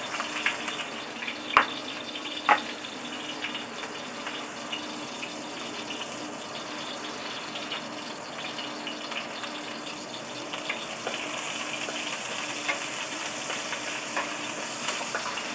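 Chopped ginger and garlic sizzling steadily in hot oil in a frying pan. A wooden spatula knocks sharply against the pan twice a couple of seconds in, with lighter scrapes and clicks as it stirs.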